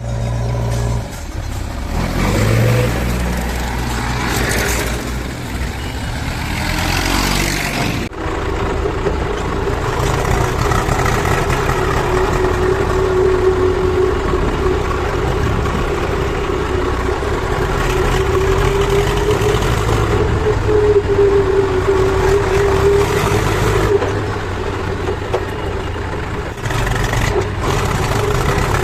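JCB backhoe loader's diesel engine working steadily, with a whine that wavers slightly in pitch and a brief sudden break about eight seconds in.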